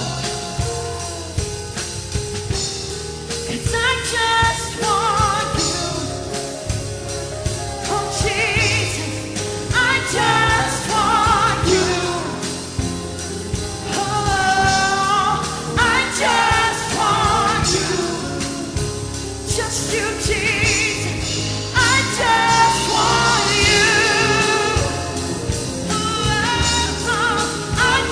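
A worship band and singers performing a gospel worship song: sung lines with vibrato over steady band accompaniment.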